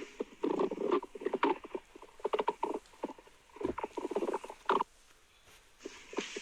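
Stomach and intestines gurgling during digestion: irregular runs of squelchy, squeaky rumbles and small crackling pops, with a short lull near the end.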